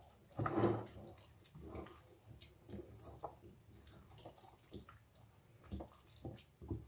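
Wooden spoon stirring a soft, wet minced-meat filling with béchamel and egg in a stainless steel bowl: quiet, irregular squelches and scrapes.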